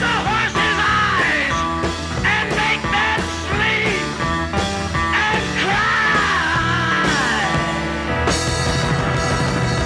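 Rock band playing live, with organ, electric guitar and drums under a wavering sung vocal line; from about eight seconds in the band plays more densely with crashing cymbals.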